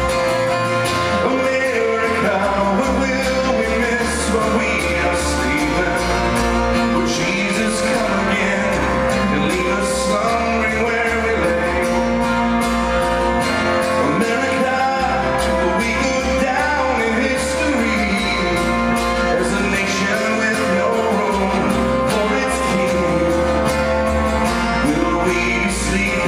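Live acoustic band music: strummed acoustic guitars, bowed violin and keyboard playing a slow song together.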